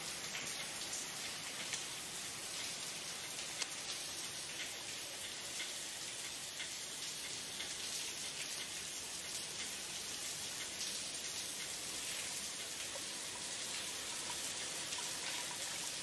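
Several showers running in a tiled shower room: a steady hiss of water spraying down onto tile, with a few faint ticks of drops.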